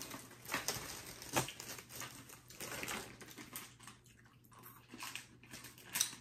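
Faint crinkling and scattered clicks of a candy packet of peppermint M&Ms being handled and opened, with a sharper click about a second and a half in and another near the end.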